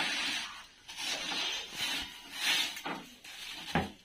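Dried pigeon droppings being scraped off a shelf with a metal blade, about five rasping strokes with a sharp knock near the end.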